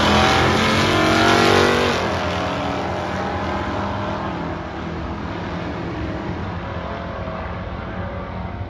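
Two drag-racing cars accelerating hard off the line side by side, their engines rising in pitch for the first couple of seconds, then fading steadily as they pull away down the strip.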